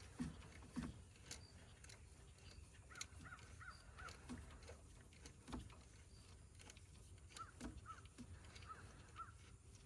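Near silence with a few faint clicks and knocks of hand work on the engine, and a bird calling in the distance in two short runs of four notes each.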